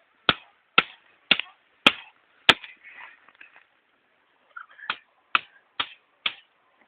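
Sharp, regular blows of a blade chopping at a wooden branch, about two strikes a second. The strikes stop for about two seconds midway, then resume.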